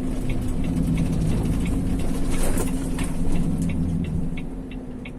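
Lorry engine running steadily, heard from inside the cab, with a quick even ticking over it, about two to three ticks a second. The engine sound eases off somewhat about four seconds in.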